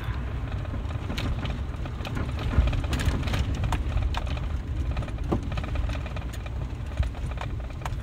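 A 2012 Ford Expedition's 5.4-litre V8 and tyres rumbling low and steady, heard from inside the cabin as it drives slowly off the road in four-wheel drive. Irregular clicks and knocks sound throughout, with the loudest thumps about two and a half seconds in and near the end.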